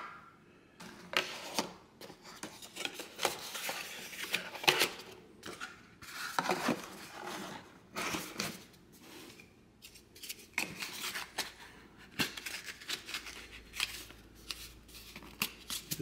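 Cardboard phone box being handled and closed by hand: the inner tray and lid sliding, scraping and tapping together in irregular bursts.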